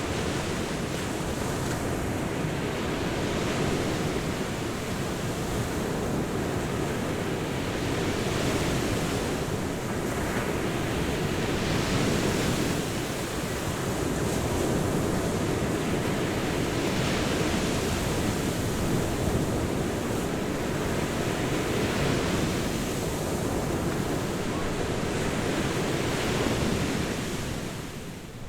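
Ocean surf breaking on a beach: a continuous wash of waves with swells every few seconds, and a dip in level near the end.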